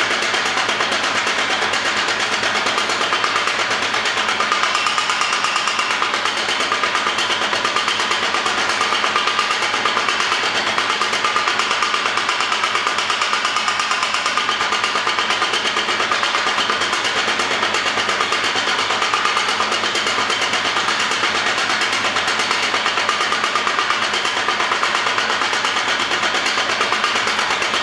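Homemade power hammer running, with a rapid, steady, machine-driven hammering rhythm.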